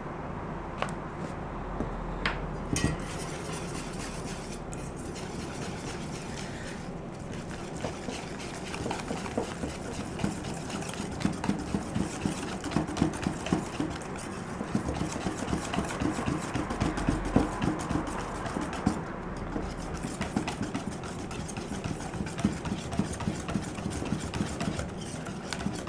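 Pancake batter being stirred by hand in a mixing bowl, with rapid, irregular clicks of the utensil against the bowl that get busier about a third of the way in.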